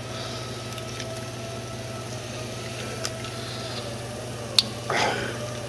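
Small clicks and rustling of a wiring harness and plastic plug connectors being handled in a forklift engine bay, with one sharp click about four and a half seconds in and a short louder rustle just after, over a steady low hum.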